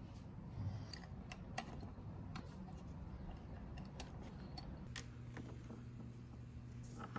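Light, scattered metal clicks and taps as an oil filter cover is fitted to a scooter engine case and its small bolts are started by hand with a socket. A low steady hum comes in about five seconds in.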